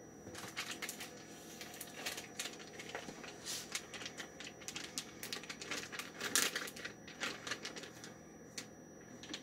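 Plastic zip-top bag of raw chicken breasts crinkling and rustling as it is handled and opened and a breast is pulled out: an irregular run of crackles and clicks, busiest about halfway through.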